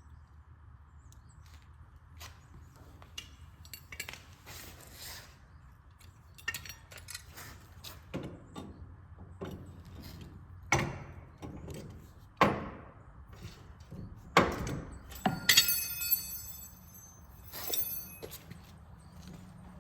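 Irregular knocks, thuds and scrapes, with a ringing metallic clatter near the end.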